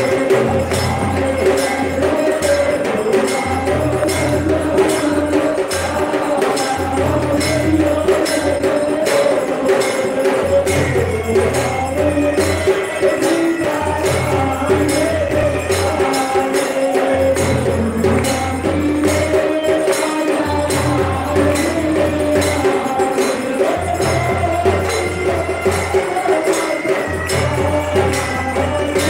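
Devotional aarti music: steady, fast jingling percussion over a regular low drum beat, with a wandering melody line.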